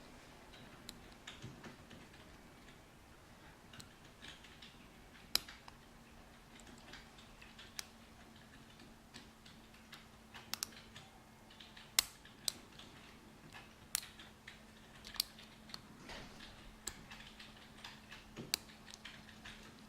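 Lock picks working the pins of a BKS five-pin cylinder: light scratching and irregular sharp metallic clicks, about a dozen, as pins are raked and set. A faint steady hum runs underneath.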